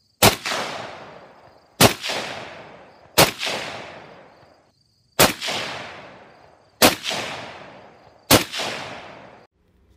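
Six rifle shots from a 7.62x39 AR-style rifle with a 16-inch barrel, firing bulk steel-case ammunition. The shots come about one and a half seconds apart, and each is followed by a long fading echo.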